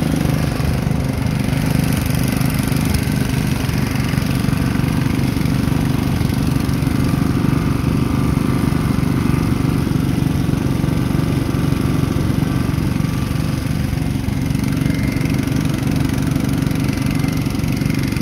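1998 Yamaha R6 race bike's 600 cc inline-four engine idling steadily through an aftermarket Power Tech end can, with no revving.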